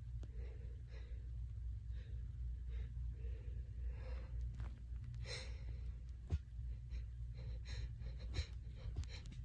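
A woman's breathy sneeze build-up from a head cold: repeated short, quick breaths, then a sharp gasping inhale about five seconds in that does not turn into a sneeze (a false start). A couple of short, sharp sounds follow, one of them the loudest moment.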